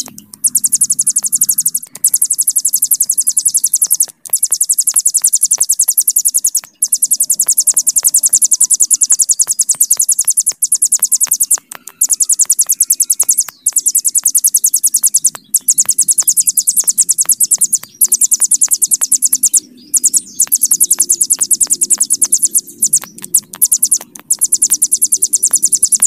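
Ciblek gunung (a prinia) singing long, very fast, high-pitched trills, the 'bren panjang' prized in master recordings, each running several seconds before a brief break. A faint low hum lies underneath.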